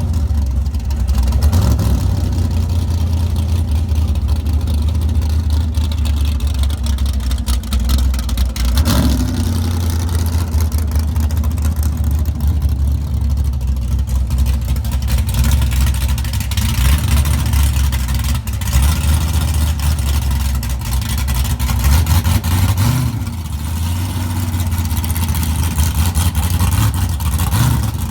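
2017 COPO Camaro's V8 running at idle with a steady deep rumble. The revs rise briefly a few times, about a third of the way in and again near the end.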